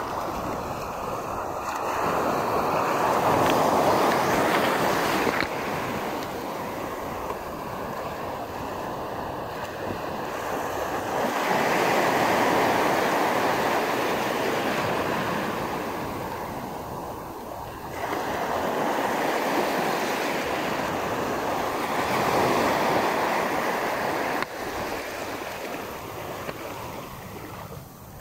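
Small waves washing in and breaking on a sandy shore, the rush of surf swelling and fading every several seconds.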